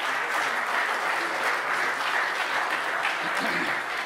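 Audience applauding a speaker who has just been introduced: a steady clapping of many hands.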